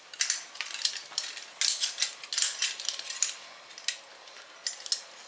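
Metal parts of a new door knob lock assembly clinking and rattling as they are handled, in a run of sharp clicks that is busiest around the middle.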